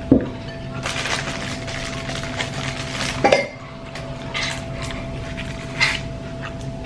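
Dishes and cutlery clinking and clattering, with a heavier knock right at the start and another about three seconds in, over a steady low hum.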